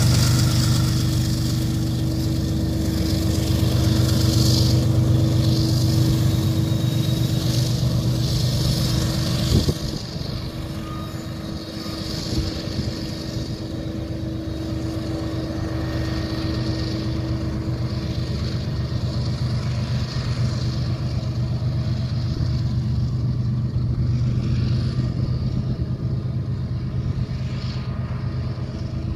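BNSF diesel locomotive at the rear of a loaded coal train passing beneath and moving off, its engine running with a steady low drone over the rumble and hiss of wheels on rail. It is loudest at first and drops a little about ten seconds in.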